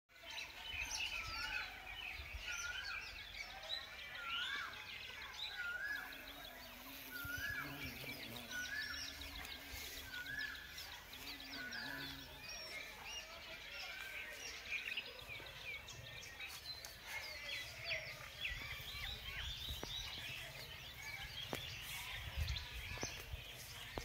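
Many small birds chirping and calling together, with one bird repeating a short rising call about every second and a quarter through the first half. A low rumble sits underneath.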